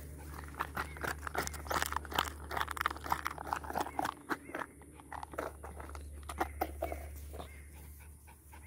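A Welsh corgi chewing a spiky rubber ball held in its mouth: a quick, irregular run of crunchy bites, busiest in the first half and thinning out after about five seconds.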